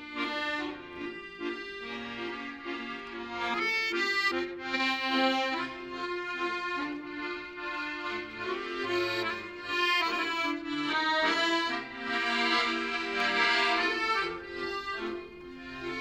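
Chromatic button accordion playing a melody over held low chords, with a few short, sharp chords about four seconds in.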